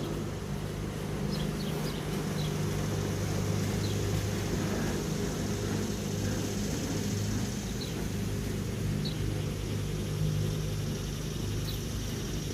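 Steady low motor hum with a few faint, short high chirps over it.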